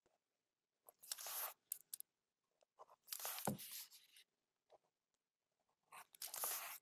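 Pen and hand working ink across smooth drawing paper: three bouts of scratchy rubbing, about a second in, around three seconds in and near the end, with a few small ticks between.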